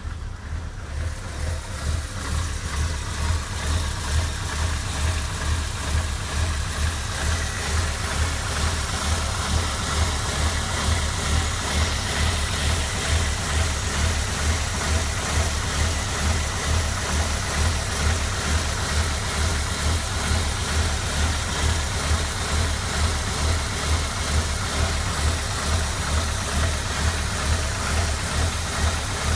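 Rover K-series 1.8 four-cylinder engine of a 1996 MGF idling roughly, its note surging in a regular pulse. The rough idle comes from a vacuum pipe that had come off the ECU.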